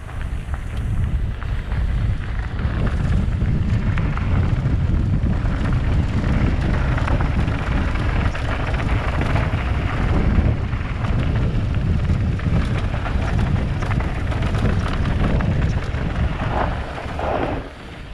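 Downhill mountain bike on a Trek Session frame ridden fast down a dirt jump trail: wind buffeting the GoPro microphone as a deep rumble, over tyre roar and rattle on dirt. The noise falls away sharply just before the end as the bike slows.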